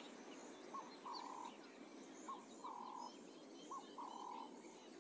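Faint bush ambience: an animal's call of two notes, a short one then a longer steady one, repeating three times about every second and a half, with scattered faint high bird chirps over a soft hiss.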